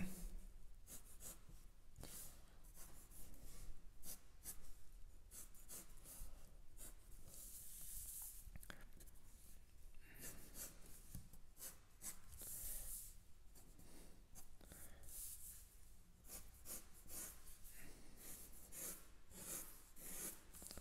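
Fineliner pen drawing lines on paper: a series of faint scratchy pen strokes, some short and some drawn out over a second or so, with brief pauses between them.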